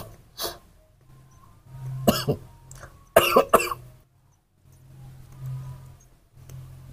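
Short coughs and throat clearing in a few brief bouts, the loudest about three seconds in, over a low steady hum.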